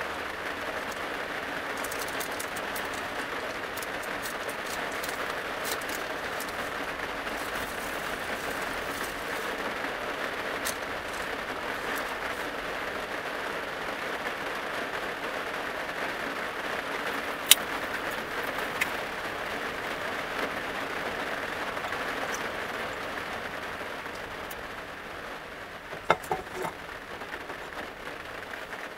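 Steady rain falling on the roof of a small van, heard from inside, with a few sharp clicks from cookware being handled, mostly near the end.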